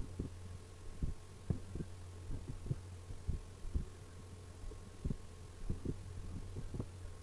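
A steady low electrical hum, with soft low thumps at irregular intervals, about two or three a second.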